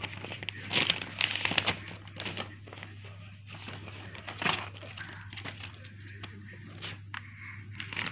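Sheets of paper being crumpled and torn by a toddler's hands: irregular rustling crackles, loudest about a second in and again around four and a half seconds, over a steady low hum.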